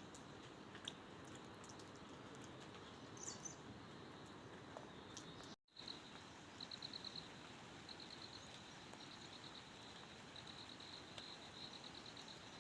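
Faint steady outdoor hiss with a few scattered ticks. After a brief dropout about halfway in, a high chirping comes in short, rapid pulsed trains that repeat every second or so.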